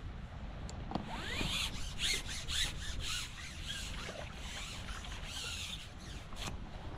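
Carbon fishing pole being pushed out over the water, rubbing and squeaking with a run of sharp clicks for several seconds, then settling.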